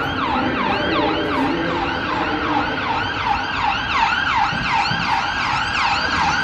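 Emergency-vehicle sirens sounding in a fast yelp, more than one overlapping, each sweeping up and down about three times a second.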